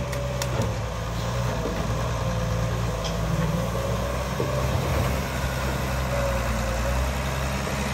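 Diesel engine of a long-reach excavator running steadily under load, with a steady, slightly wavering whine over it, as the arm works soil into the bank and swings back.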